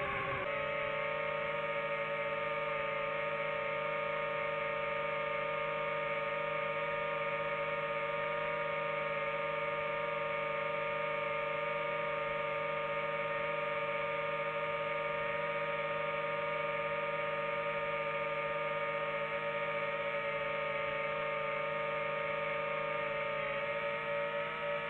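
DJI FPV drone's motors and propellers whining steadily at a near-constant pitch while it hovers, the pitch settling just after the start.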